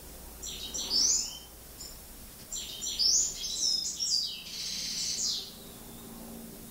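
European goldfinch of the Iberian race parva singing in breeding condition: two twittering phrases of quick high notes, the second longer and ending in a buzzy trill.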